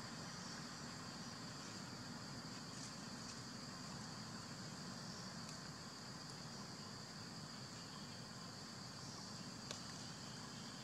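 Faint, steady high-pitched insect drone over low outdoor ambience, with a single small click near the end.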